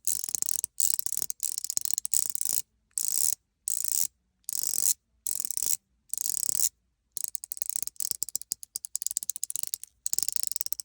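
Pi mechanical fidget ring, tuned with two stainless steel balls, clicking as it is worked: about nine short runs of rapid, crisp clicks. From about seven seconds in, these give way to a looser string of separate clicks.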